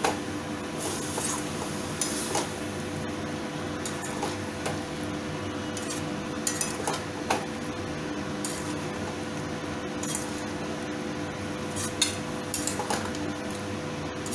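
Metal spatula scraping and clinking against a metal kadhai as a thick potato and pointed gourd curry is stirred, in irregular knocks every second or two.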